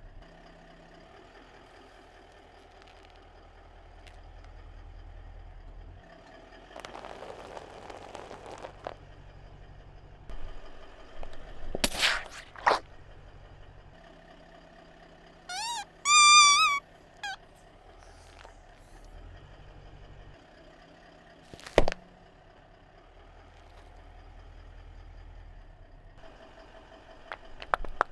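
Car tyre rolling over squeaky rubber toys over the low, steady hum of the idling engine. About halfway through, a squashed rubber chicken gives a loud, high, wavering squeal lasting over a second. Sharp cracks come a few seconds before the squeal and again several seconds after it.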